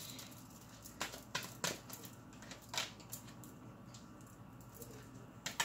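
Tarot cards being drawn off a hand-held deck and laid down on a cloth-covered table: a few short soft flicks and taps, several in the first three seconds and one more near the end.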